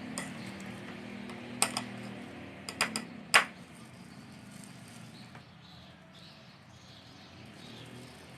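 A spoon clinking a few times against a dish while scooping filling: a light clink just after the start, then a quick cluster of clinks between about one and a half and three and a half seconds in, the last one the loudest.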